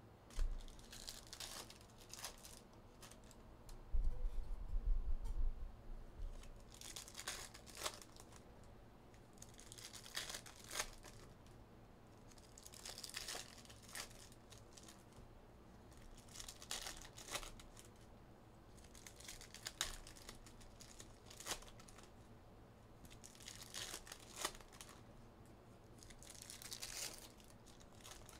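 Foil trading-card pack wrappers being torn open and crinkled by hand, a short burst of tearing every few seconds. A low bump and rumble sounds about four seconds in.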